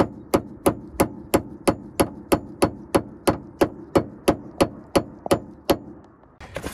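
Steady hammer blows, about three a second, driving a new rubber bushing into the steering idler arm mount; the blows stop shortly before the end.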